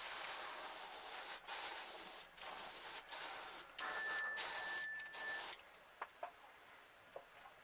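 Airbrush spraying a light coat of paint: a steady air hiss that stops and starts about five times as the trigger is worked, with a faint thin whistle during the last pass. The spraying stops about two-thirds of the way through, leaving only a few faint clicks.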